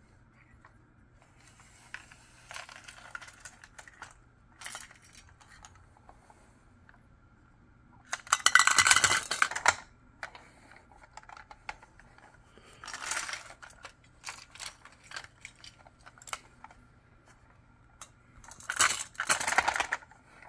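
Glass marbles and small plastic toys clattering as a toy front loader's bucket scoops them up and tips them into a clear plastic cup. Scattered clicks, with three louder rattling bursts about eight, thirteen and nineteen seconds in.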